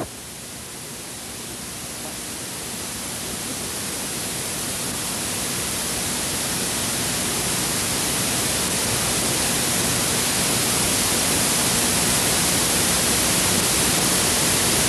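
Steady hiss of static with a faint low hum underneath, growing slowly louder: the noise of the recording itself, with no sound from the room.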